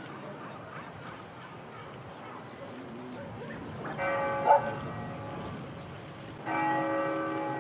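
Church bell struck twice, about four seconds in and again some two and a half seconds later, each stroke ringing on and dying away. A brief loud sound cuts in just after the first stroke, over faint background ambience.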